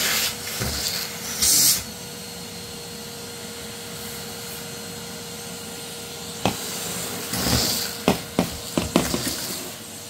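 Henry cylinder vacuum cleaner running with a steady hum and suction hiss. The hiss is loudest in the first two seconds, and a series of sharp knocks comes near the end as the hose end bumps and sucks up debris.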